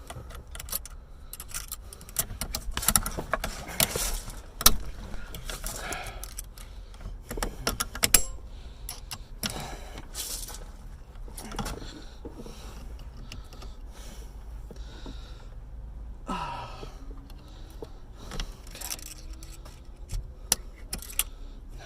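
Irregular metallic clinks, rattles and scrapes of hand tools and small metal parts while a car seat's sensor fitting is worked loose by hand, with some heavy breathing between them.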